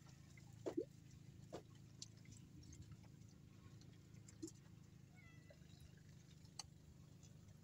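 Near silence: a faint steady low hum with a few brief chirps and clicks, the loudest a quick pair a little under a second in.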